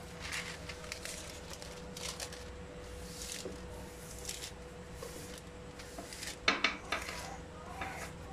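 Baking paper rustling and crinkling as it is laid over an oiled metal baking tray and smoothed flat by hand, in short scattered bursts. About six and a half seconds in come a few sharp clatters from the metal tray, the loudest sounds.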